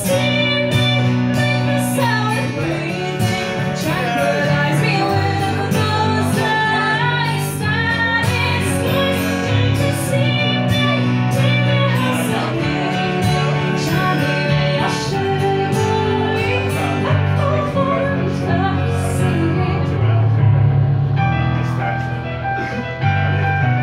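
A woman singing live, accompanied by a digital keyboard playing sustained chords and a strummed acoustic guitar.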